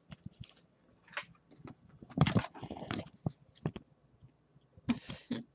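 Scattered clicks and knocks, with a louder rustling stretch about two seconds in and a shorter one near the end.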